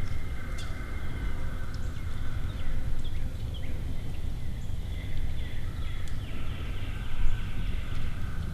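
Outdoor woodland ambience: a low steady rumble, with birds chirping and calling over it throughout.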